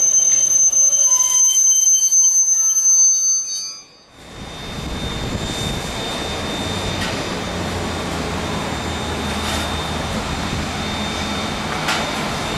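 Heritage railway carriages rolling past with a rumble and thin, steady wheel squeal. After about four seconds this gives way to a steady low roar and hiss from the standing BB18¼ steam locomotive, with steam rising from its chimney.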